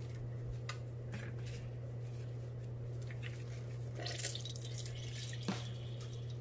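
Lime juice dripping into a glass measuring cup as limes are squeezed in a hand-held metal citrus press, with a few light clicks from the press.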